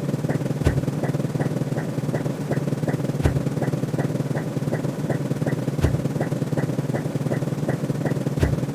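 Electronic ticking loop: a light tick about three times a second and a sharper click with a low thud about every two and a half seconds, over a steady low hum.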